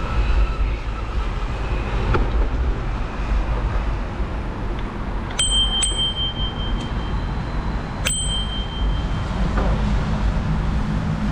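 Bicycle bell rung twice in quick succession about halfway through, then once more a couple of seconds later, each ding ringing on briefly. Under it, a steady low rumble of wind and riding noise on the action camera's microphone.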